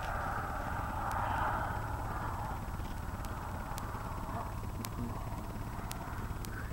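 Radio-controlled model airplane engine droning high overhead, a rough buzz that slowly fades as the plane flies away, over a low rumble.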